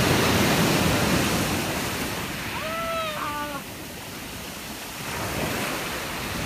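Surf breaking and washing up a pebble beach: loudest at first, easing off in the middle, then building again. About three seconds in, a person gives a brief high shout.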